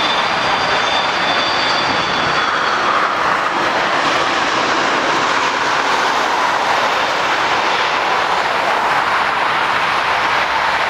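Jet airliner's engines passing close, a loud, steady roar with a faint high whine in the first few seconds that fades away.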